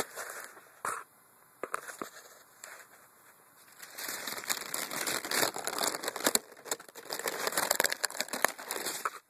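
Rustling and crackling handling noise from a phone camera being moved and rubbed against clothing, with a few sharp clicks in the first two seconds. It turns dense about four seconds in and cuts off suddenly at the end.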